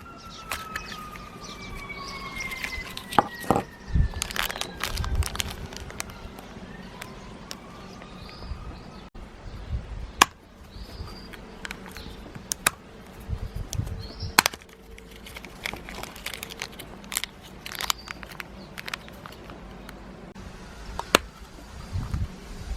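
Plastic gashapon capsules and their wrappers being handled and opened: irregular sharp clicks and cracks with crinkling plastic. A falling tone sounds over the first two seconds or so.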